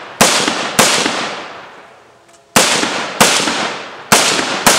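AR-15 rifle firing six shots in three quick pairs, the two shots of each pair about half a second apart, each shot followed by a fading echo.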